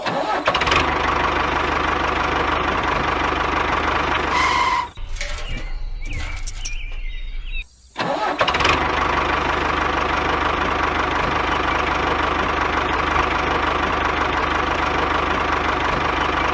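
Small engine running steadily, broken by two abrupt cuts about five and eight seconds in.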